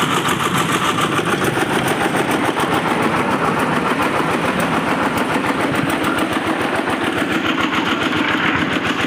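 Single-cylinder stationary diesel engine driving a concrete mixer, running steadily with a fast, even beat.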